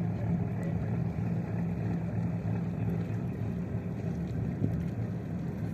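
Steady low hum of the ship Logos Hope's engines running as she moves out of port, a constant rumble with a low drone and no horn blast.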